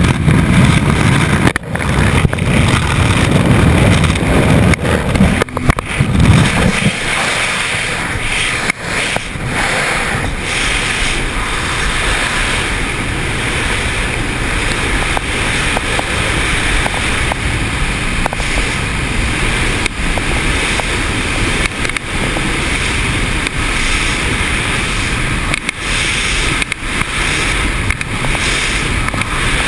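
Loud, steady rush of wind over the camera microphone in skydiving freefall. For the first six seconds or so a heavier low rumble from the aircraft at its open door lies under it, then drops away, leaving an even rushing hiss.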